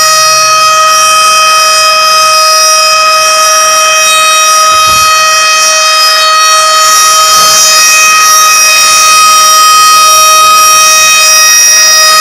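Civil defense siren sound played from a phone siren app, held at one steady pitch with many overtones. The app presents it as the siren for a nuclear attack.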